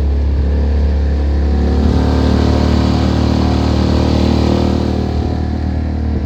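Outboard motor of a small boat running steadily under way, growing a little louder in the middle and easing off near the end.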